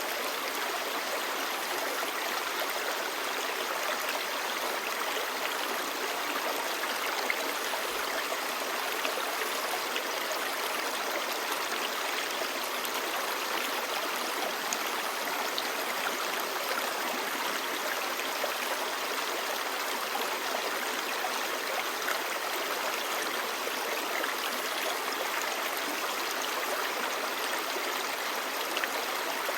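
Clear stream babbling steadily over rocks, an even rushing of water.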